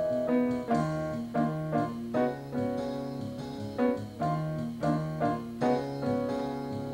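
Digital stage piano played with both hands in a piano voice: chords and melody notes struck about every half second over held bass notes, each note fading after it sounds.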